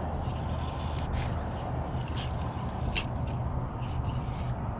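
Fly line being stripped in by hand during a fly retrieve, about five short scraping strips, over a steady low hum.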